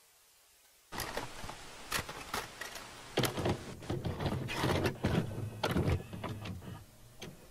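Glitchy static and distortion noise that cuts in suddenly about a second in: irregular crackles and bursts over a low rumble, like a damaged video tape playing.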